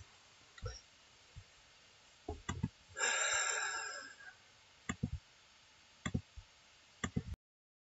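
A few faint, scattered clicks and a breathy hiss lasting about a second, then the sound cuts to dead silence near the end.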